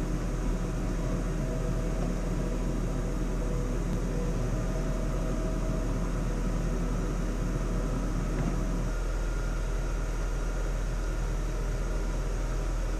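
Steady low hum and hiss of workshop background noise, with no clear separate event; a slightly fuller layer in the lower range drops away about nine seconds in.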